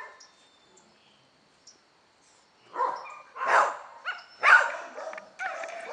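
A dog barking three times in quick succession, starting about halfway in.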